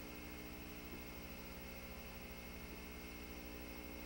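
Faint steady electrical hum and hiss, with no other sound.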